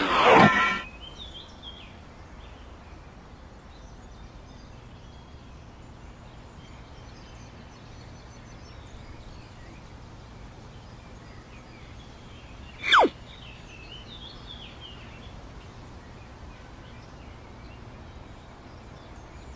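Outdoor ambience with faint birdsong, broken twice by a short comic sound effect that falls quickly in pitch like a descending whistle: once right at the start and again about thirteen seconds in.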